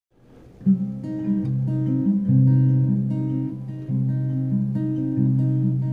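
Acoustic guitar with a capo, strummed chords in a steady rhythm that begin about half a second in: the instrumental opening of the song.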